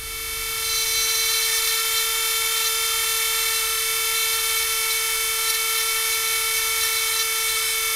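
Small handheld rotary tool running at a steady speed, a high whine that holds one pitch after spinning up over about the first second. Its bit is held against the plastic at the headphone earcup's battery compartment.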